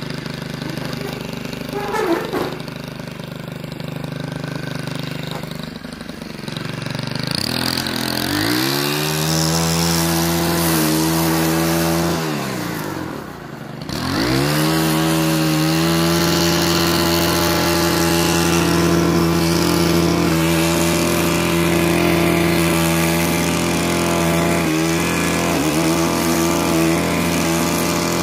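Stihl FS 87 two-stroke brush cutter idling, then throttled up about seven seconds in. The revs drop back briefly near the middle, rise again, and then hold high and steady as it cuts grass, with a couple of short dips near the end.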